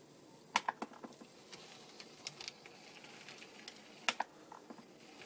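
HO-scale Jouef TGV V150 model power car running along the track on its newly fitted DCC decoder: a faint steady running noise from the motor and wheels, with a few light clicks scattered through it. The drive is new and not yet run in, and it runs a little jerky.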